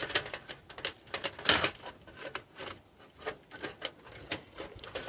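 Thin stainless steel parts of a folding wood-burning camp stove clicking and rattling as a section is clipped into the stove body at either side: a run of irregular light metal clicks and taps, the loudest about a second and a half in.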